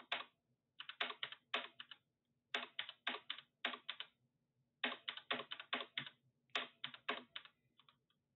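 Typing on a computer keyboard: quick runs of keystroke clicks in several bursts, with short pauses between them.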